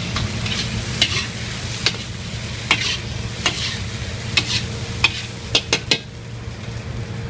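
Ladle scraping and knocking against a wok as beef and scallions are stir-fried over high heat, with sizzling and a steady low rumble underneath. About ten sharp strokes, with a quick run of three about three-quarters in.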